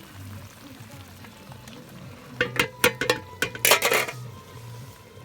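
A metal utensil stirring plov in a wok over a fire. About halfway through there is a loud run of sharp clinks and scrapes against the metal that lasts under two seconds, over a faint frying sizzle.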